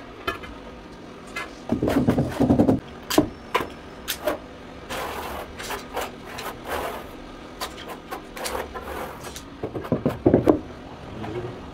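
Ceramic floor tile being set: irregular knocks, clicks and scraping as a large tile is worked into adhesive with a suction-cup lifter and plastic levelling clips. Clusters of heavy thuds come about two seconds in and again near the end.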